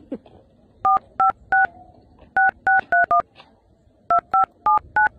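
Smartphone keypad touch-tones (DTMF) as a phone number is tapped in: eleven short dual-tone beeps in three quick groups of three, four and four.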